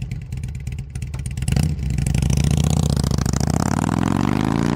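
Motorcycle engine running with a fast, even pulsing beat. It grows louder about a second and a half in, then revs up with a rising pitch near the end.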